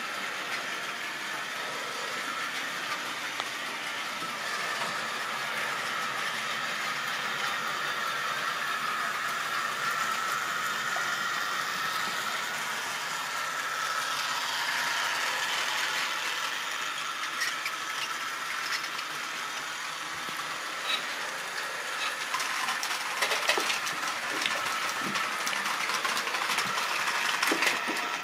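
Model railway train running on its track: a steady whir of the locomotive motor and wheels, with clicks over the rail joints growing more frequent in the last several seconds.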